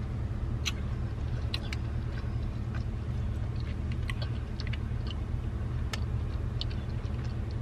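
Steady low road rumble inside a moving car's cabin, with soft scattered mouth clicks of someone chewing a pastry.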